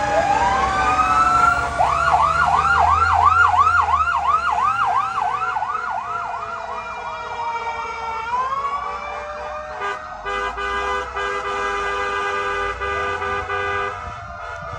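Fire engine sirens: a rising wail, then a fast yelp of about four rises a second, gliding down about eight seconds in. This is followed by a steady horn blast with a few short breaks, lasting about four seconds.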